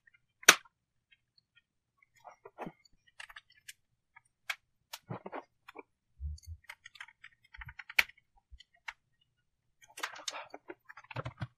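Scattered sharp clicks and taps from a laptop's aluminium bottom cover being pressed back into place by hand and with a plastic pry tool, its clips snapping in. The loudest snaps come about half a second in and again about eight seconds in, with a few dull low thumps from handling.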